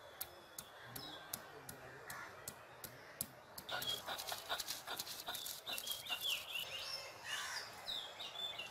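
Garlic cloves being crushed on a flat stone grinding slab (shil-pata): sharp knocks of the stone pestle striking the cloves, two or three a second, then, from about halfway, the stone rolled and rubbed back and forth in denser clicking and scraping. Short bird chirps are heard over the grinding.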